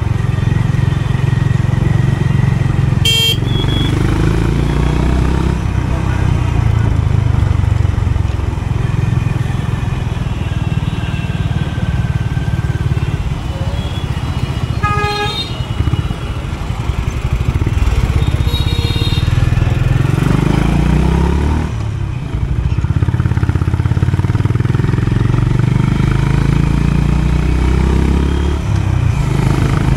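Honda CB350 RS single-cylinder motorcycle engine running steadily under way. The engine sound dips and then picks up again about two-thirds of the way through. A short horn toot from traffic comes about halfway, with briefer high beeps near the start and a little after the middle.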